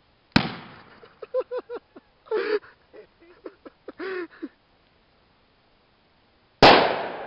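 Two Works bottle bombs (toilet bowl cleaner and aluminium foil in plastic bottles) bursting with sharp bangs. The first comes just under half a second in. The second, louder one comes near the end and dies away slowly. Short bursts of voices fall between them.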